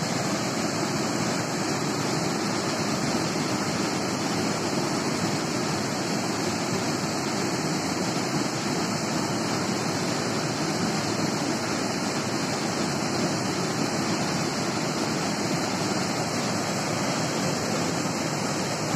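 Muddy river in flood pouring over a small weir, a steady, unbroken rush of water.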